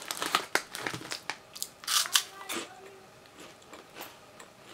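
Herr's Honey Cheese Flavored Curls being bitten and chewed: a run of short crunches and crackles that thins out and gets fainter after about two seconds.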